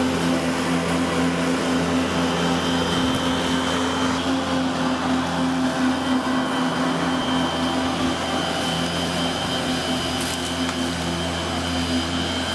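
Bosch AdvancedRotak 750 electric lawn mower's 1700 W motor and blade running steadily while cutting grass: a constant hum with a faint high whine.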